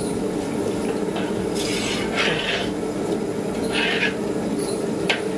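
A metal ladle scraping and knocking against a large cooking pot: a few short scrapes and a sharp clink near the end, over a steady low hum.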